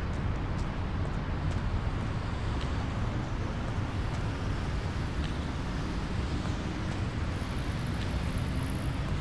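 City street traffic ambience: a steady rumble of passing vehicles, with a few faint clicks and a faint high whine near the end.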